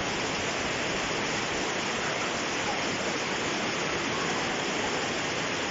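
Heavy hailstorm: a dense, steady hiss of countless small hailstones striking the ground and surfaces, with no let-up.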